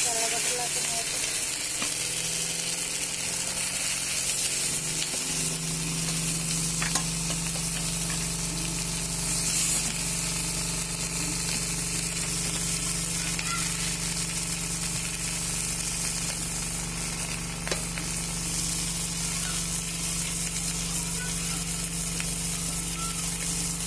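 Small whole fish sizzling steadily as they fry in hot oil in a pan. A steady low hum joins about five seconds in.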